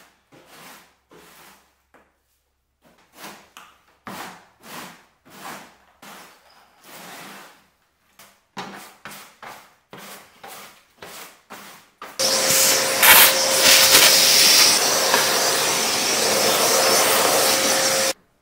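Broom and hand-brush bristles sweeping dry birch bark debris across the bark floor of a canoe hull in quick repeated strokes. About twelve seconds in, a much louder steady machine noise with a constant hum takes over and cuts off suddenly near the end.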